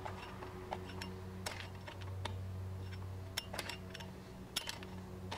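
A flathead screwdriver turns the brake shoe adjuster on a 2011 Chevrolet Cruze rear drum brake, giving a series of irregular, sharp, small metal clicks. The adjuster is being turned downwards to draw the brake shoes closer together, because the drum would not fit over them.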